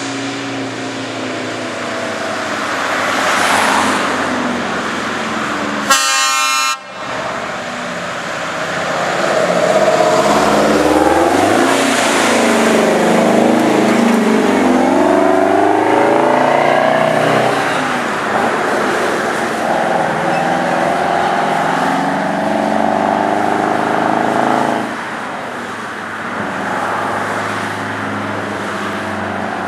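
Heavy trucks driving past with their diesel engines running and air horns blowing, the horn tones sliding in pitch as they go by. A long, steady horn blast cuts off sharply near the end, over road and wind noise.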